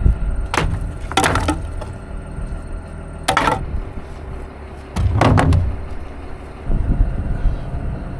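Several wooden and metal knocks and clatters as pallets and leftover grain-bin equipment are picked up and tossed, about five in all, the loudest cluster about five seconds in. A low engine rumble runs underneath.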